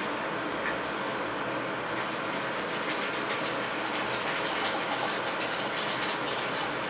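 16mm film projector running, a steady mechanical whir and clatter, with a dense patter of short crackles and clicks added from about three seconds in.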